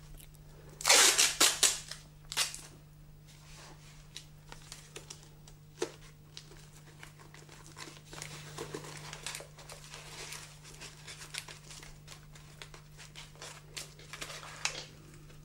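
Masking tape ripped off the roll, loudly about a second in and again near the end, with quieter crinkling and rubbing between as the strips are pressed onto a crash helmet's lining.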